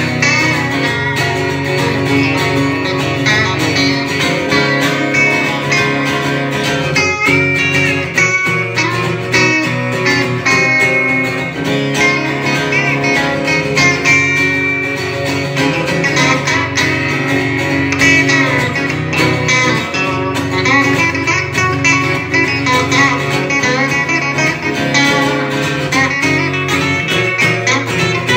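A band playing a song live: a strummed acoustic guitar and an electric guitar playing together.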